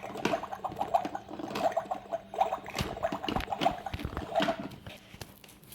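Plastic toy pieces being handled, clicking and knocking together in an irregular patter, with a few louder knocks about three seconds in.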